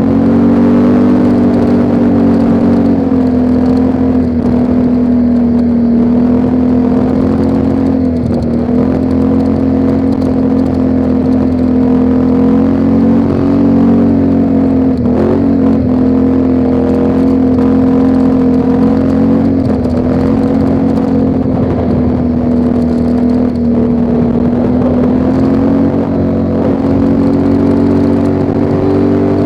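ATV engine running steadily under way, its pitch dipping briefly a few times as the throttle eases and picks up again.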